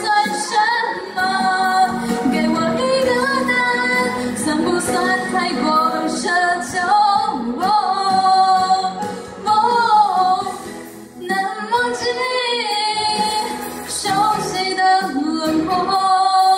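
A woman singing a Mandarin pop ballad into a handheld microphone, holding long notes with vibrato, with a short break between phrases about eleven seconds in.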